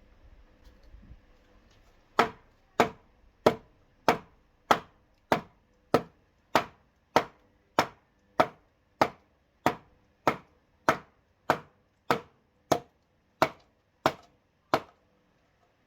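A tool striking wood in a steady rhythm: about twenty sharp, evenly spaced blows, roughly one and a half a second, starting about two seconds in.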